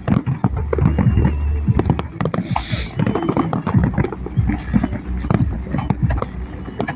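Fireworks going off in quick succession: a dense run of bangs and crackling pops over a low rumble, with a hissing burst about two and a half seconds in.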